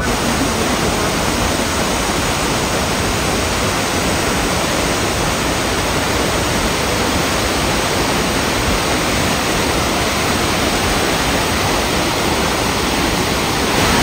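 Multnomah Falls' lower tier pouring into its plunge pool: a steady, loud rush of falling water.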